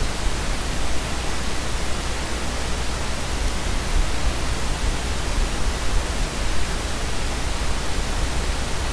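Steady hiss of recording background noise with a low hum beneath it; nothing else stands out.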